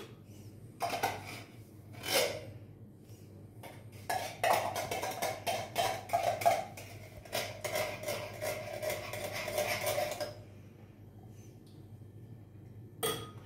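Metal spoon knocking and scraping against a container of hot soup as the last of it is spooned out into bowls: two or three knocks early, then about six seconds of quick scraping and clinking that stops suddenly.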